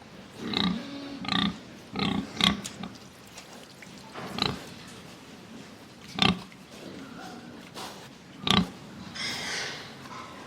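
Pigs oinking and grunting: about seven short calls at irregular intervals, with a longer, higher call about nine seconds in.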